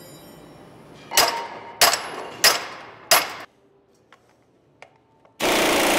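Four sharp metallic knocks about two-thirds of a second apart. Near the end, a loud steady rattle of an impact wrench running down the pinion nut on a Toyota Tacoma front differential, bringing the new pinion bearings to their preset preload.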